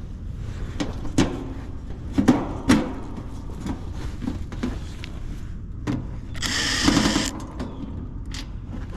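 Work inside a sheet-metal HVAC cabinet: several sharp knocks and clunks of tools and metal, then a harsh burst lasting about a second, over a steady low hum.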